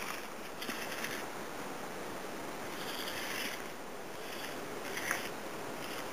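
Micro RC rock crawler's small electric motor and gearbox whirring in a few short spurts over a steady hiss.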